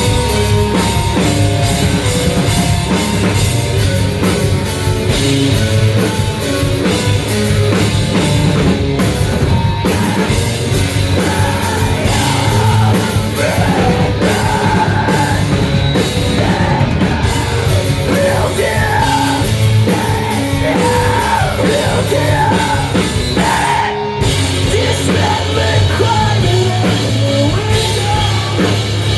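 Live rock band playing loud through a club PA: distorted guitars, bass and drum kit, with yelled, wordless-sounding vocals in the middle stretch. The full band cuts out for an instant about 24 seconds in, then comes back.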